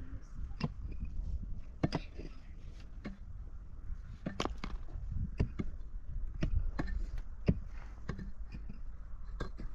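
A series of sharp knocks or strikes, irregularly spaced, about one or two a second, over a low steady rumble.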